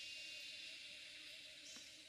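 Faint outdoor forest ambience: a steady high-pitched insect drone, with a faint short bird chirp or two.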